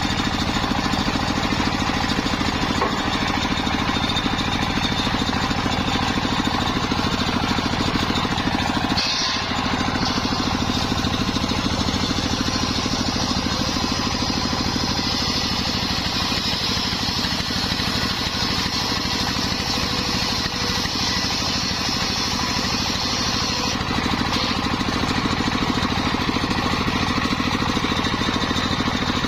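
Engine-driven circular saw rig running steadily, with the engine's drone throughout. A higher whine joins it from about nine seconds in until about twenty-four seconds in, typical of the blade cutting through the log.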